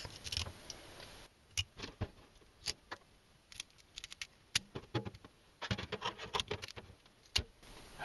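Kitchen shears snipping through the fins of a crucian carp: a scatter of short, sharp clicks and crunches at irregular intervals, with a quick run of snips about six seconds in.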